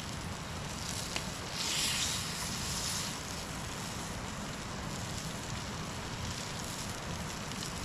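Wood campfire burning: a steady hiss with a few faint crackles, and a louder stretch of hissing lasting about a second and a half, about two seconds in.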